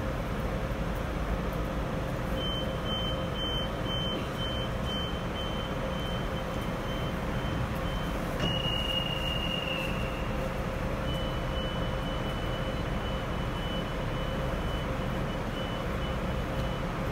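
Railjet's Taurus electric locomotive standing with its on-board equipment running: a steady hum and fan-like noise. Over it a high beeping starts a couple of seconds in, pulsing on and off, holds as one longer tone for about a second and a half past the middle, then pulses again until near the end.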